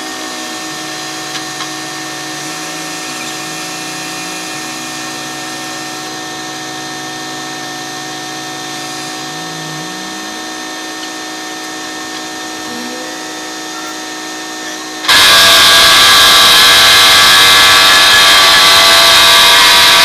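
Roadwork machinery running: a steady engine drone with a few brief rises in pitch, then about fifteen seconds in a much louder, hissing machine noise cuts in abruptly.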